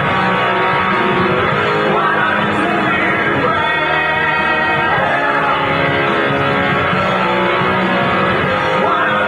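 A band playing a song with sung vocals and held notes, loud and steady throughout, with a dull, muffled top end.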